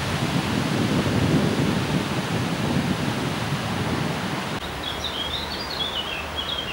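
Outdoor wind noise: leaves rustling and wind buffeting the microphone as a steady, gusty hiss. About four and a half seconds in, the noise eases a little, and a small songbird sings a quick run of high chirps.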